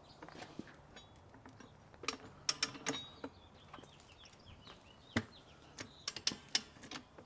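A Rabaconda manual motorcycle tire changer worked by hand: its bar swings around the wheel as the duck head rolls the last section of the tire bead onto the rim. Scattered clicks and knocks, with a few faint squeaks between them.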